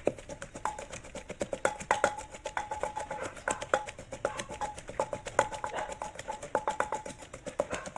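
A spoon clinking and knocking against a bowl that rings briefly after each hit, in irregular strikes a few times a second, as seasonings are stirred together.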